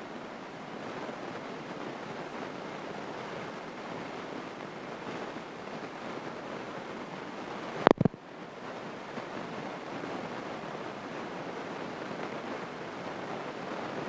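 Steady hiss of cockpit and intercom noise in a small training airplane, with a sharp, loud double click a little past halfway through.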